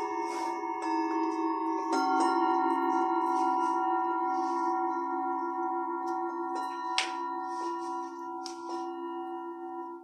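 Tibetan singing bowls struck with a mallet, several ringing together in long overlapping tones, the lowest ones wavering as they sustain. New bowls are struck every few seconds, the sharpest strike about seven seconds in.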